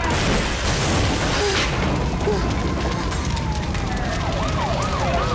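A loud rushing noise, then an emergency-vehicle siren wailing in a slow glide that falls in pitch. Near the end a second siren joins with a fast up-and-down yelp.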